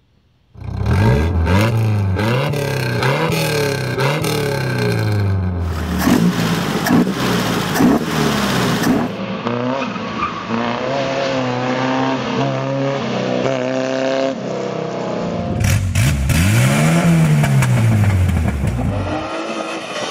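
Opel GT's 1.9-litre straight-four engine revving hard, its pitch climbing and falling again and again as the car accelerates and shifts, in several short recordings spliced together. Near the end one long rev rises and falls away.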